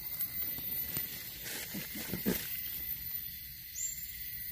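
Knife and fingers scraping and rustling through damp leaf litter and sandy soil while digging up small wild mushrooms, with a few louder scrapes about a second and a half to two and a half seconds in, over a steady high hiss.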